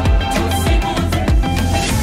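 Background music with a steady drum beat under sustained melodic notes.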